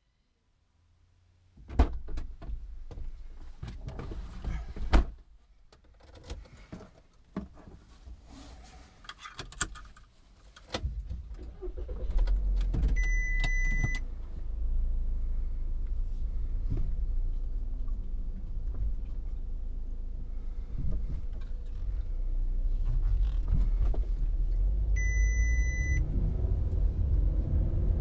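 A series of knocks and clunks. Then, from about eleven seconds in, a van's engine runs with a steady low rumble. An electronic chime beeps twice, about a second each time.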